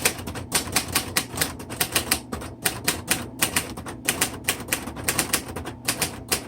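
1960 Royal Heritage portable manual typewriter typed on quickly and lightly: a fast, even run of sharp typebar strikes, about six a second. This machine needs a light, quick touch, or its typebars stick when struck heavily.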